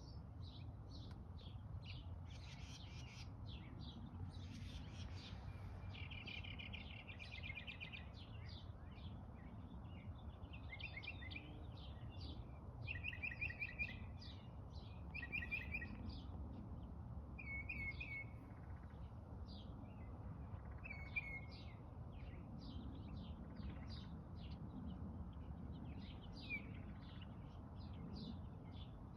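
Several small birds chirping and singing, with rapid short chirps throughout and repeated short trilled phrases. A steady low background rumble runs underneath.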